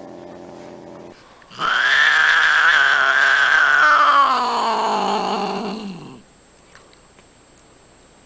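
A cat growls low and steadily for about a second. Then another cat gives a long, loud yowl that starts high and slides down in pitch over about four seconds before stopping.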